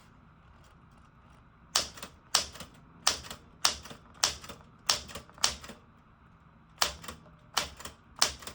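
Manual typewriter keys struck one at a time, about ten sharp typebar clacks at an uneven pace of roughly two a second, with a short pause before the last three.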